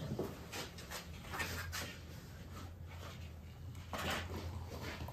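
A blue enamel coffee pot is lifted off the wood stove's top with a few light knocks, then hot water is poured from it into a mug about four seconds in.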